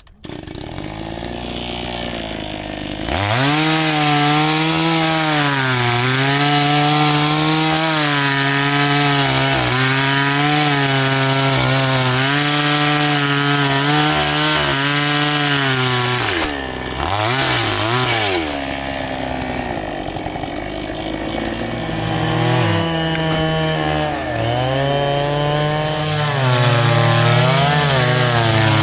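Two-stroke chainsaw cutting wood. Its engine runs lower for the first few seconds, then revs up and holds high, the pitch sagging and recovering as the chain bites. About sixteen seconds in, the engine drops off briefly and revs back up.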